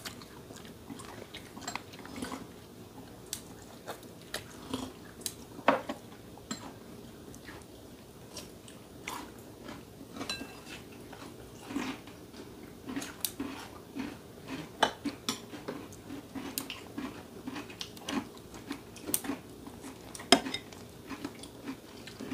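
Chopsticks and spoons clicking and tapping against bowls and plates at irregular moments, with chewing in between.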